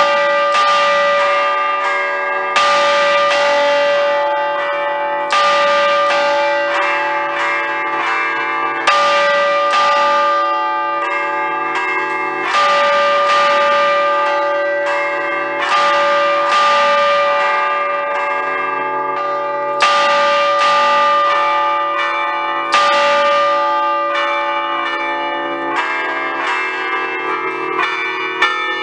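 A ring of five Ambrosian bronze church bells in D, cast by Giorgio Pruneri in 1875, chimed by hand in a festive 'allegrezze a cordette' pattern, with cords pulling the clappers against the hanging bells. A loud stroke comes every three seconds or so over quicker, lighter strokes on the other bells, and all the bells ring on together. The light strokes grow faster near the end.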